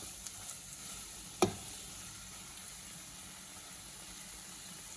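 Chicken liver fry sizzling steadily in a pan in its last minutes of frying, the masala already cooked down dry. One sharp click about a second and a half in.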